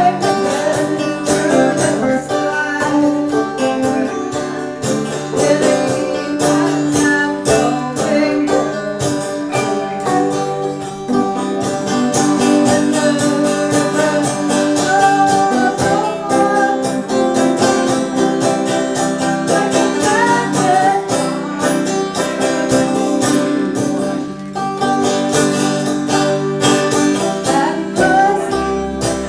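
Five-string banjo played clawhammer style: a continuous run of plucked notes in a medley of tunes.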